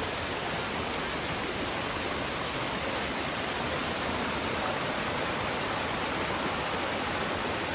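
Shallow river water cascading over rocks, a steady rushing hiss.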